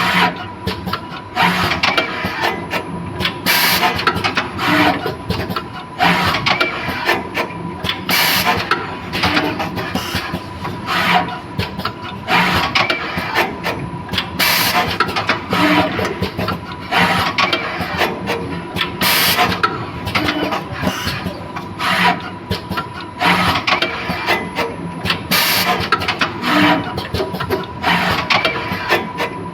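Automatic PCBA wire soldering machine running through its work cycle: repeated sharp mechanical bursts every second or two over a steady machine whine.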